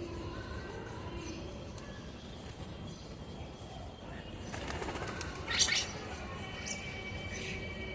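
Birds at a feeding spot: faint low calls, a flurry of wing flaps about four to five seconds in with a sharp chirp, then a thin high call near the end.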